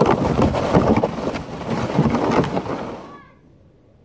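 A sled sliding fast down a snowy hill: a loud, crackly scraping rush with wind on the microphone, which cuts off abruptly about three seconds in.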